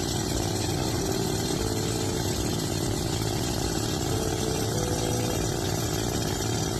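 An engine running steadily, starting suddenly and holding an even level throughout.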